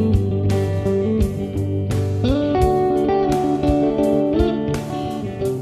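Background music: a guitar-led instrumental with some gliding notes over a bass line and a steady beat.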